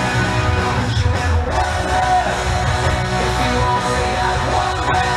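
Rock music with electric guitar, playing steadily.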